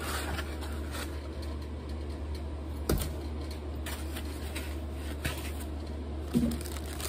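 Clear plastic wrapping crinkling and rustling as it is handled around a boxed air compressor, with scattered light clicks and a sharper knock about three seconds in. A steady low hum runs underneath.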